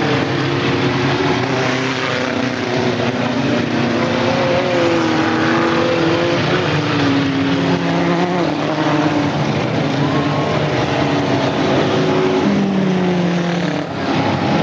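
Several Chevrolet Chevette race cars with four-cylinder engines running hard in a pack. Their overlapping engine notes slide up and down in pitch as the cars pass and go round the track.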